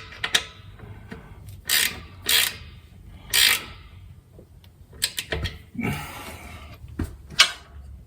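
A wrench tightening the oil drain plug on an air compressor's crankcase: three short bursts of rapid metallic clicking, then a few scattered sharp clicks and knocks.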